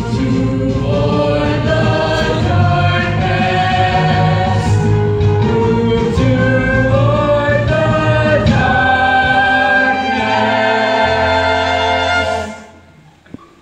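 Stage-musical ensemble of many voices singing together over instrumental accompaniment, ending on a held chord that dies away about a second before the end, followed by a single brief click.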